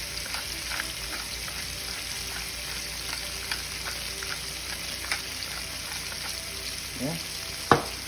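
Shrimp and chopped garlic frying in oil in a pan: a steady sizzle with small crackling pops, and one sharp knock near the end.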